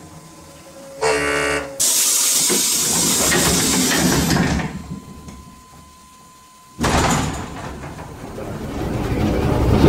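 Inside the motor car of an EN57 electric multiple unit as it sets off: a short horn-like tone, then a few seconds of loud compressed-air hiss, then, after a lull, a sudden loud onset as the traction motors take power, the running noise growing louder as the train picks up speed.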